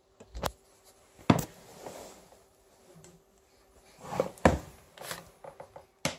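Irregular handling and bumping noises: about five sharp knocks, with softer rustling and scuffing between them, over a faint steady hum.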